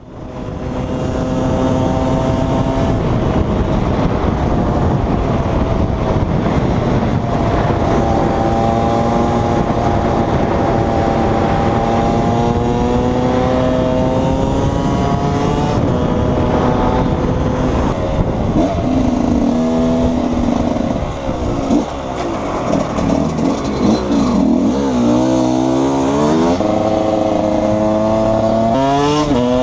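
KTM 125 EXC's single-cylinder two-stroke engine under way, its pitch climbing slowly and steadily as it pulls. About two-thirds of the way through it drops off and revs up and down unevenly, then climbs sharply again near the end.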